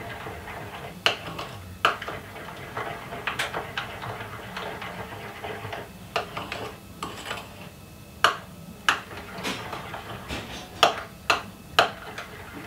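A spoon clinking and scraping against a small ceramic bowl as dried yeast is stirred into warm water. The taps come irregularly, about one a second, growing quicker in the second half.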